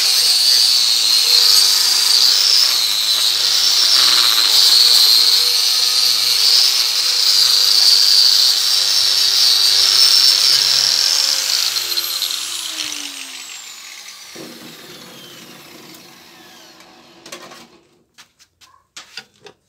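Makita GA5030 angle grinder with a disc running against a steel mower blade in a vise, stripping off stuck grass and rust. About 11 seconds in it is switched off and its whine falls away as the disc spins down, followed by a few knocks near the end.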